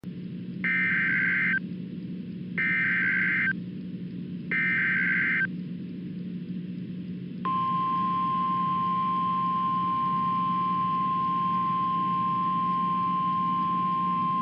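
Emergency Alert System broadcast opening: three bursts of the SAME digital header code, each about a second long and a second apart, then about two seconds in, a single steady attention tone just above 1 kHz that starts and holds. A steady low hum runs underneath.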